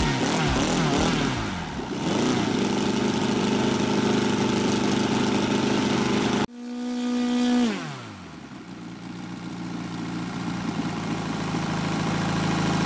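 FF-320 Pegasus four-cylinder boxer model-aircraft engine running on the ground while being tuned: it holds a fairly high steady speed, then about six and a half seconds in the sound breaks off sharply and the revs fall away to a lower steady idle.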